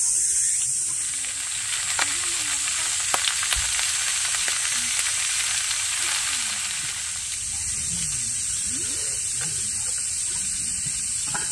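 Food sizzling as it is stir-fried in a round black grill pan on a portable camping stove, turned with metal tongs. A few sharp clicks of the tongs against the pan come about two to three and a half seconds in.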